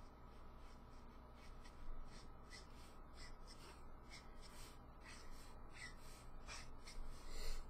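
Copic alcohol marker's brush tip stroking across paper while blending colour: faint short swishes, several a second and irregular, with a louder one near the end.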